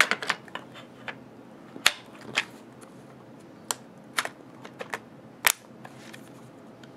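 Sharp metallic clicks and clacks of a .50 Beowulf AR-pattern rifle's upper and lower receivers being fitted together by hand: a dozen or so scattered clicks, the loudest about two and five and a half seconds in.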